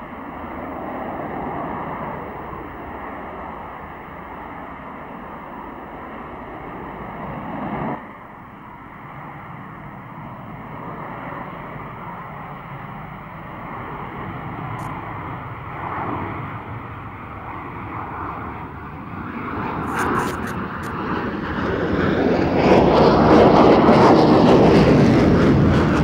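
Yakovlev Yak-141 VTOL fighter's jet engines running in slow, gear-down hovering flight: a steady jet roar with a thin high whine. The roar dips abruptly about eight seconds in and swells much louder over the last several seconds.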